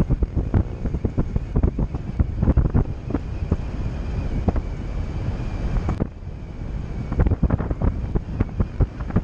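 Wind buffeting a hood-mounted action camera's microphone as the vehicle drives, heard as a low rumble with irregular gusty thumps that ease briefly about six seconds in.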